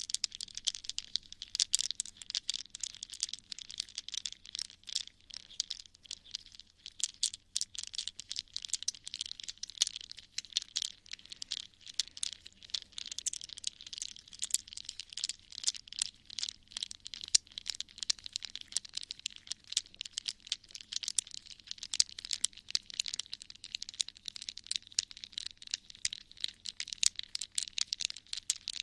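Close-microphone ASMR trigger sounds: a steady stream of rapid, fine crackling and scratching, many small clicks a second.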